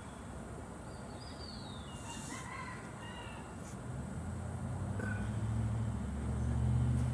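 A few bird chirps in the first half, then a motor vehicle's engine hum grows steadily louder from about four seconds in, as if approaching.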